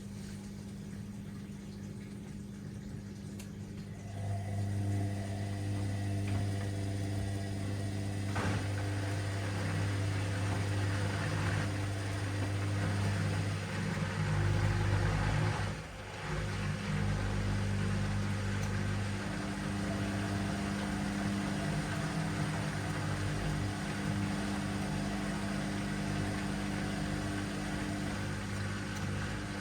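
Washing machine motor running with a steady hum. It grows louder a few seconds in, drops off briefly around the middle, then picks up again.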